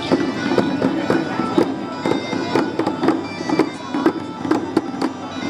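Many hand frame drums beaten together in a steady beat, about two strong beats a second with lighter ones between, over a sustained held tone.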